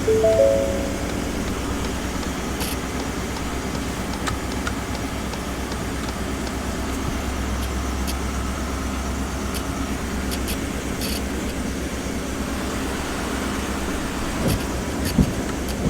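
Ford F-150 pickup engine idling steadily, with a short chime of a few notes right at the start and scattered light clicks.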